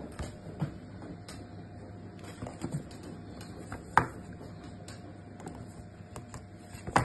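Handling noise of a cardboard box and a smartwatch on a wooden tabletop: scattered light taps and clicks, with the sharpest knock about 4 s in as the box is picked up, and another near the end.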